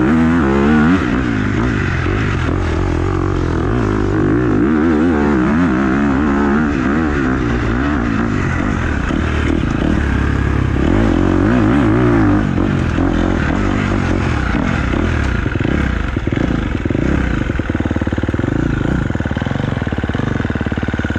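Husqvarna 300 TPI two-stroke enduro motorcycle being ridden, heard from a mount on the bike, its engine revving up and down over and over. For about the last third it runs more evenly, with a rattly clatter.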